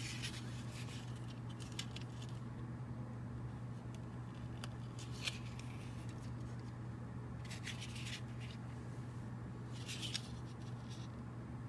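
Fingers handling a model lumber load and its tape strapping: faint rustles, light scrapes and a few small clicks, scattered through, over a steady low hum.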